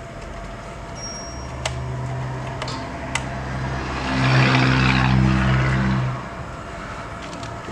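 A low, steady engine-like drone that swells with a rushing hiss about four seconds in and drops back about two seconds later. A few faint clicks come earlier.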